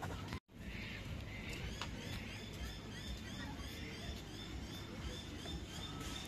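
A bird calling a regular run of short, high notes, about three or four a second, starting about two seconds in, over a steady low rumble. The sound drops out briefly about half a second in.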